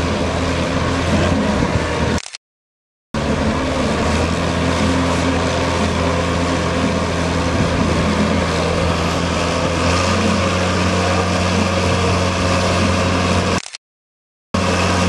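Massey Ferguson 1100 tractor's engine running steadily under heavy load, pulling a tractor hitched behind it as a brake. The sound cuts out completely twice, each time for under a second.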